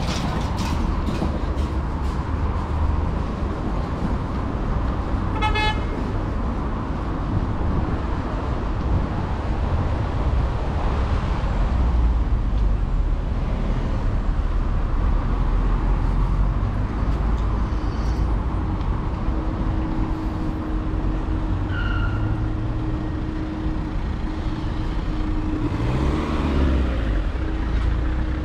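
City street traffic: steady road noise from passing vehicles, with one short car-horn toot about five and a half seconds in. A steady low hum joins about two-thirds of the way through.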